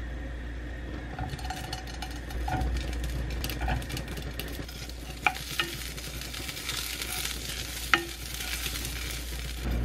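Large sausages sizzling as they fry in a nonstick frying pan, the hiss building about a second in. A few sharp knocks of a utensil against the pan as they are turned.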